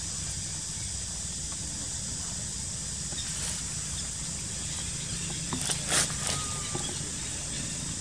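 Steady outdoor background hiss, with a short cluster of sharp crackles about six seconds in.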